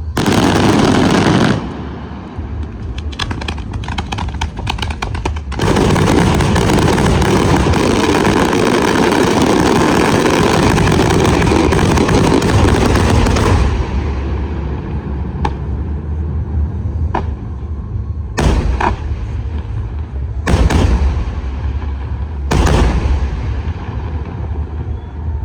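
Fireworks going off: a dense volley of bangs at the start, scattered sharp cracks, then a rapid, unbroken barrage of reports for about eight seconds. After that come a few single loud bangs, two or three seconds apart.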